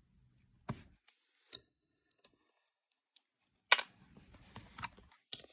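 Small plastic objects being handled: a series of separate clicks and taps, the loudest about three and a half seconds in, with a brief low rustle after it.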